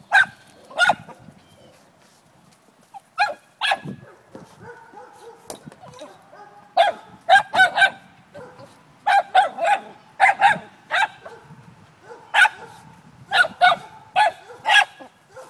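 Small dogs barking in short, sharp barks, often two or three in quick succession, while worrying at prey on the ground. After a quieter stretch early on, the barking comes thick and fast through the second half.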